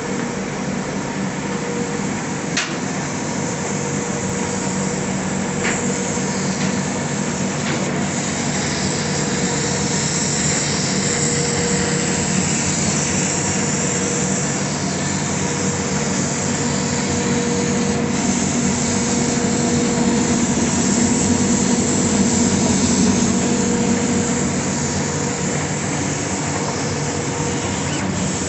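Laser cutting machine running while cutting leather: a steady mechanical hum with a few faint clicks, swelling slightly in the middle.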